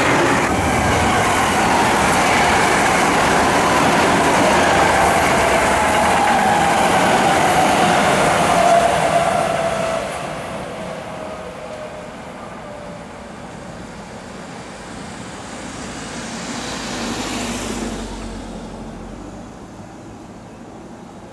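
An electric commuter train running close by with loud wheel and running noise, and a motor whine that falls steadily in pitch. About ten seconds in the sound drops to a quieter train approaching round a curve, a Tokyo Metro 8000 series, which grows louder for a few seconds and then eases.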